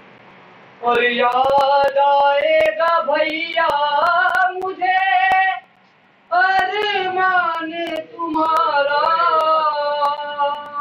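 A single high voice chanting a mournful Shia lament (noha) in long, drawn-out melodic phrases, coming in about a second in and breaking off briefly near the middle.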